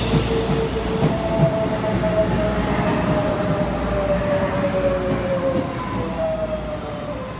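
Taiwan Railways EMU500-series electric multiple unit (car EMC512) pulling into the station past the platform. Its wheels rumble on the rails, and a whine slowly falls in pitch as the train brakes. The sound eases off near the end as the last car goes by.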